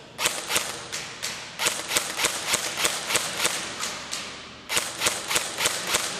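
Double Eagle M89 UMP airsoft gun firing single shots, about three a second: a run of roughly eleven shots, a pause of about a second, then five more.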